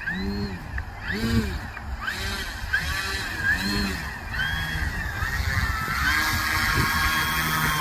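RC model airplane's motor and propeller being throttled in short blips while it taxis on grass: the pitch swells up and falls back about once a second, then holds at a steady higher whine for the last couple of seconds. Wind rumble on the microphone underneath.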